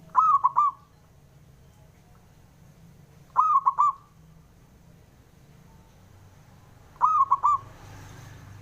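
Male zebra dove (perkutut) cooing its song: three short phrases of quick rolling coos, about three and a half seconds apart.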